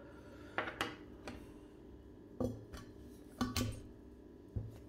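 About half a dozen light clinks and knocks of hard kitchenware being handled, spaced irregularly over a few seconds, most likely the parts of a portable coffee maker and a glass.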